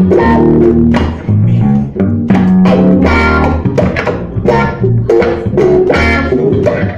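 Blues band playing an instrumental passage of plucked guitar over a bass guitar line, without singing.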